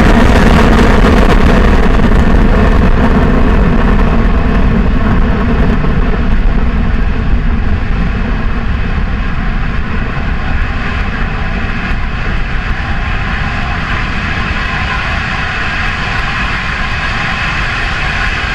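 Antares rocket's first-stage engines, a pair of Russian RD-181s, rumbling loud and deep as the rocket climbs away. The roar slowly fades and turns duller.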